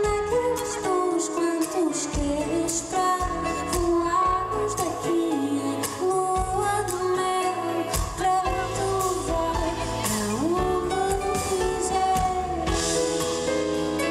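Live acoustic pop performance: a woman singing over acoustic guitar and bowed cello.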